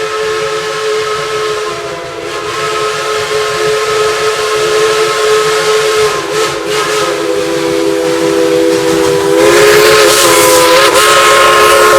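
Steam whistle of narrow-gauge Baldwin 2-8-2 locomotive No. 190 held in one long blast, several tones sounding together as a chord. It grows louder and hissier about nine and a half seconds in.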